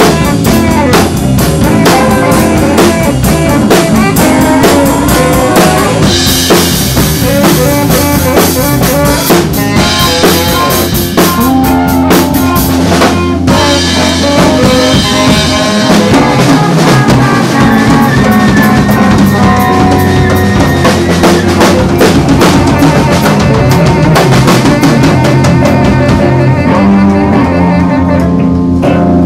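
A live band playing loudly, driven by a busy drum kit with snare and bass drum, with tenor saxophone and electric guitar in the mix.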